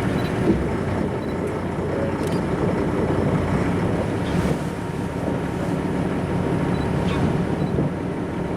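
A boat's engine running steadily, a low hum under a dense, even rushing noise.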